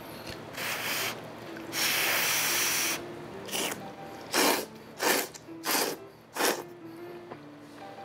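A person slurping soupy curry egg noodles (khao soi) through the lips. A long slurp comes about two seconds in, then four short quick slurps between about four and six and a half seconds.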